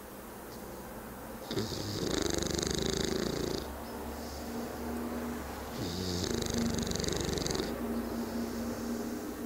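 English bulldog snoring in its sleep: two long, rasping snores about four seconds apart, each lasting about two seconds.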